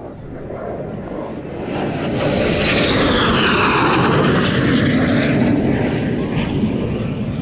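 Kawasaki T-4 jet trainer passing low overhead. The roar of its twin turbofans swells over a couple of seconds, is loudest in the middle with a high whine sweeping in pitch as it goes over, then fades.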